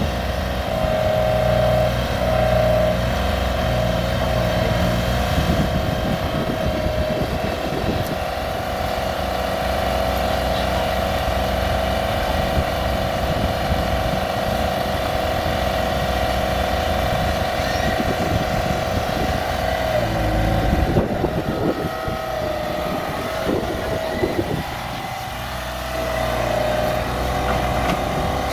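An excavator's diesel engine runs steadily, with a strong whine over it that steps and dips in pitch a couple of times as the machine works.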